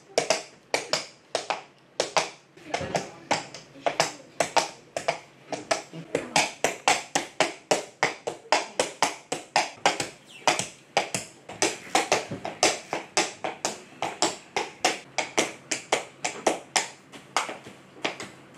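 Halved coconut shells knocked on a foley board, a continuous run of sharp knocks several a second, imitating horses' hooves.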